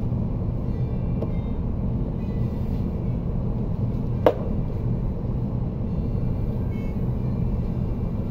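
Steady low background rumble, with a single sharp click about four seconds in.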